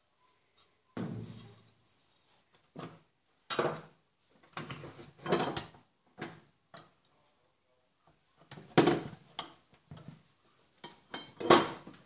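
Irregular metal clanks and knocks, a dozen or so, some ringing briefly, as a tool and metal parts are handled against a washing machine's transmission; the loudest come about three quarters of the way through and near the end.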